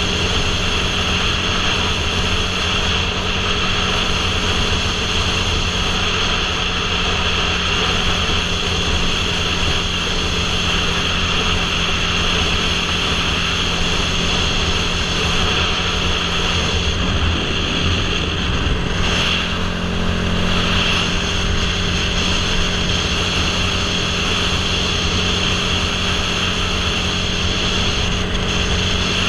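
Motorcycle engine running steadily at highway cruising speed, mixed with constant wind noise on the helmet-mounted microphone.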